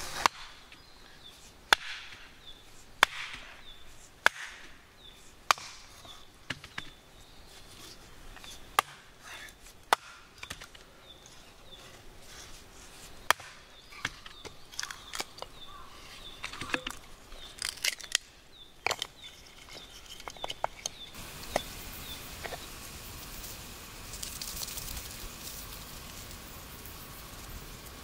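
Hatchet with its blade wedged in a small log, knocked down onto a wooden chopping block to split the log: a series of sharp wooden knocks, irregularly spaced. About three-quarters of the way through the knocks stop and give way to a soft steady noise.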